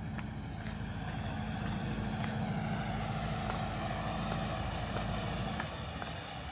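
Footsteps on a hard path over a steady low rumble, like a passing vehicle, that cuts off sharply about five and a half seconds in.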